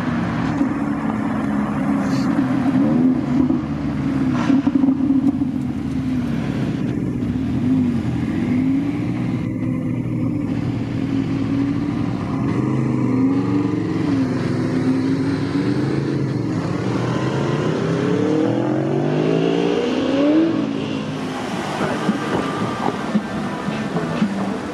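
Exotic car engines revving and pulling away, their pitch rising and falling with repeated blips. Near the end comes a long climb in revs that drops off abruptly.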